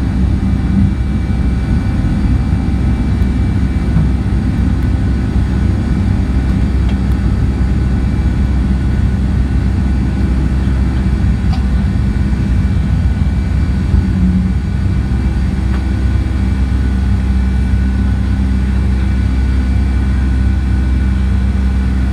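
Boeing 757-200's Pratt & Whitney turbofan engines at takeoff power during the initial climb, heard inside the cabin as a loud, steady rumble with a constant engine drone over it.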